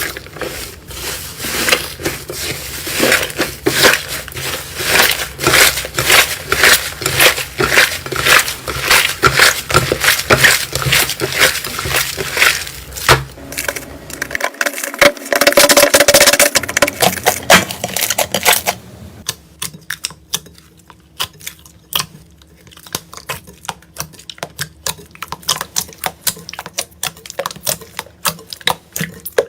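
Slime being squeezed and pressed by hand, making rapid crackling clicks and pops. After about two-thirds of the way through the sound changes to sparser, quieter clicks, as a different slime is handled.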